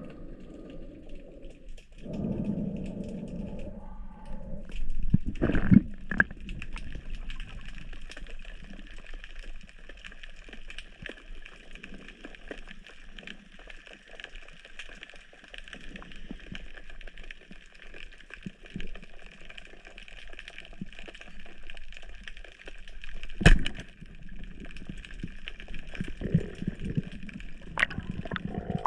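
Water heard through a camera underwater while spearfishing: muffled swishing and rumbling with scattered small clicks, and one sharp knock about 23 seconds in.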